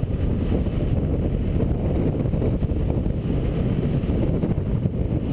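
Paramotor engine running steadily, mixed with wind buffeting a helmet-mounted microphone in flight.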